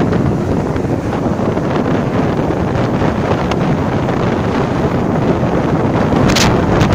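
Wind buffeting the microphone on a moving motorcycle: a loud, steady rushing noise, with stronger, hissier gusts near the end.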